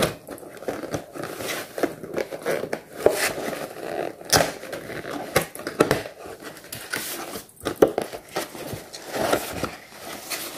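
Cardboard box being opened by hand: the tuck flaps scraping and rubbing as they are pulled free and the lid is lifted, a run of irregular rustles and scrapes.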